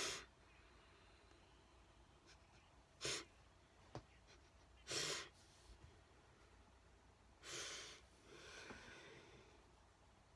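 Near silence broken by three short, sharp breaths or sniffs about two seconds apart, with a faint click between the first two.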